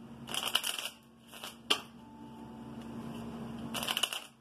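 A deck of tarot cards shuffled by hand: a quick run of crisp card flicks about half a second in, a short ripple and a sharp snap before the middle, then another quick run of flicks near the end. A faint steady hum lies underneath.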